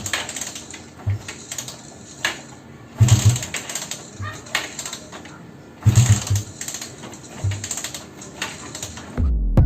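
Suzuki Raider 150 motorcycle engine being cranked three times, about three seconds apart. Each attempt is a short sputtering burst and clatter that dies away without the engine catching: the bike is hard to start. Music comes in near the end.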